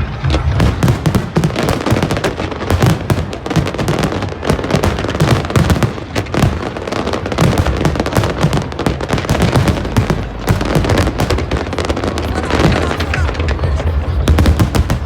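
Fireworks display: a dense, unbroken barrage of bangs and crackles, many sharp reports every second over a low rumble.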